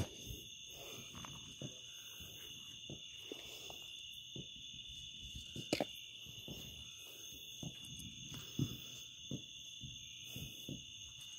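A steady, unbroken high trill of night insects, with scattered light knocks and scuffs of handling and steps on gravel; one sharp click about six seconds in.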